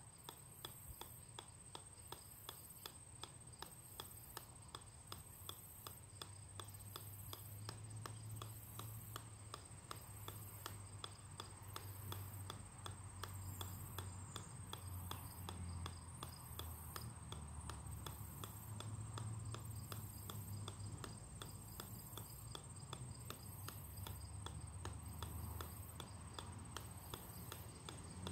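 A golf ball bouncing again and again off the steel head of an 8-pound sledgehammer. It makes a steady, even run of light ticks, about two to three a second.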